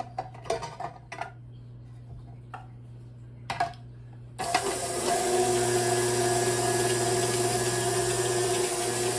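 Short plastic clicks and knocks as the fine grater drum and cheese are fitted into a slicer-shredder attachment. About four seconds in, a KitchenAid stand mixer switches on and runs steadily, spinning the grater drum as it grates cheese.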